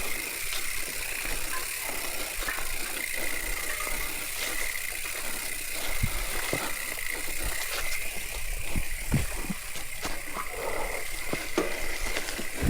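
Mountain bike rattling and knocking as it rolls over a rough trail: frequent irregular clanks and thumps over a steady rushing noise, with a thin high-pitched tone held underneath.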